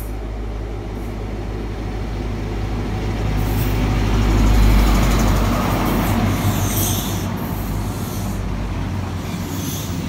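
A CrossCountry HST's Class 43 power car, with its MTU V16 diesel engine, runs into the station: a heavy low engine rumble and wheel noise that swells to its loudest about halfway through as the power car draws level, then eases as the coaches roll past.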